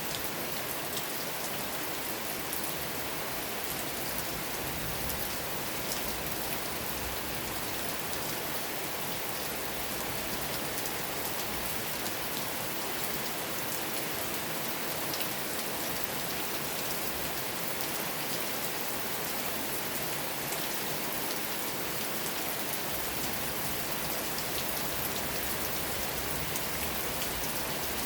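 Steady rain falling, a continuous hiss with fine drop patter, unchanging throughout.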